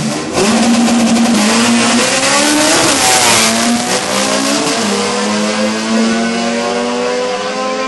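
A Mazda RX-7 FD and a Honda Civic launching in a drag race at full throttle. The engine pitch climbs and drops back at each upshift.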